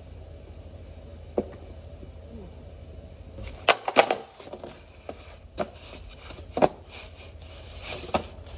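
Skateboard knocking and clacking, with about half a dozen sharp impacts spaced a second or two apart. The loudest come in a quick cluster about four seconds in.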